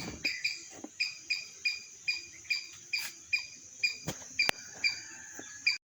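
Short pitched chirps from an animal, repeating about three times a second over a steady high hiss like insects, with two sharp clicks a little after four seconds in; all of it cuts off suddenly near the end.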